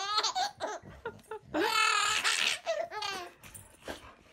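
A baby laughing in high-pitched bursts: a short laugh at the start, a long belly laugh about halfway through and a shorter one after it, dying down near the end.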